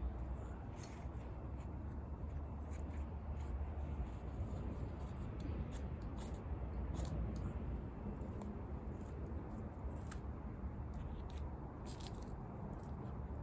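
Wood bonfire crackling, with irregular sharp pops and snaps over a steady low rumble.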